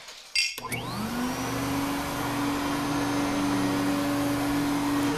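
Vacuum cleaner switched on with a click about half a second in. Its motor spins up in a rising whine over about a second, then runs steadily with a hum and a hiss of rushing air.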